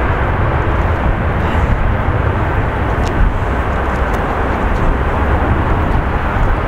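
Jet airliner engines, a loud, steady rumble with a deep low end.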